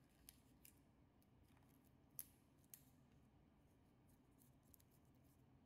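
Near silence: room tone with a few faint, scattered clicks, the clearest about two seconds in.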